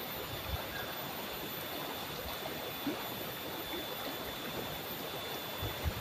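Shallow, fast-flowing stream rushing over rocks: a steady, even rush of water with a few brief low gurgles.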